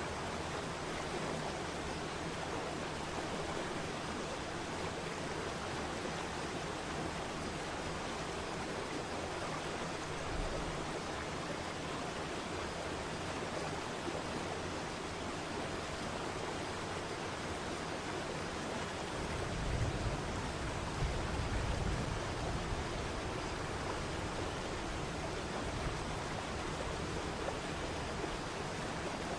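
Waterfall: steady rushing of falling water, an even hiss with no breaks. A low rumble swells briefly about twenty seconds in.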